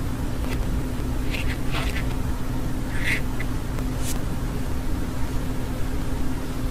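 A steady low hum with a constant drone, and a few faint short high chirp-like sounds in the first few seconds.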